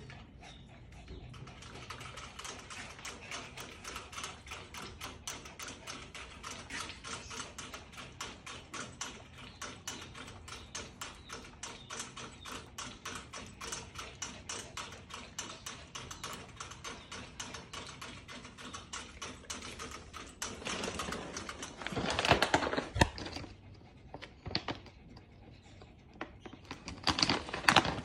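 Small dogs in a metal wire cage: a long, even run of fast light ticks, then louder rattling bursts about 21 seconds in and again near the end.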